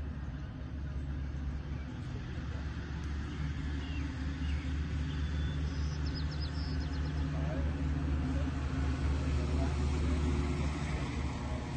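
Steady low rumble of a running engine, getting a little louder toward the end, with a brief run of faint high chirps about six seconds in.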